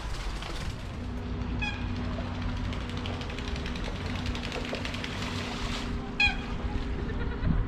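Steady engine hum with a low rumble, joined about a second in by a steady droning tone. Two short high cries sound over it, about a second and a half in and again near the end.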